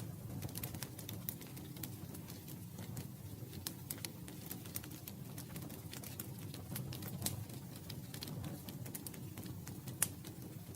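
Campfire crackling: irregular sharp pops and snaps over a low steady rumble of burning wood, with one louder pop near the end.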